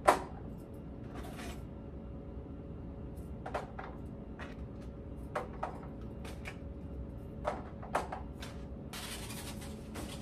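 Household handling noises: a sharp knock right at the start, then scattered light clicks and knocks of doors and items being moved, and a short rustle near the end.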